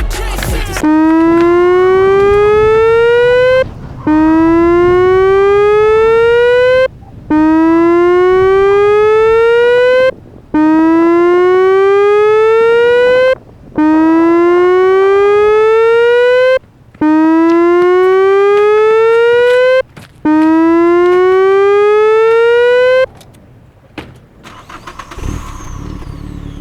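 Electronic alarm siren sounding seven rising whoops, each climbing in pitch for about three seconds and then cutting off abruptly before the next begins; it stops a few seconds before the end. It is a made-up snow-storm warning alarm.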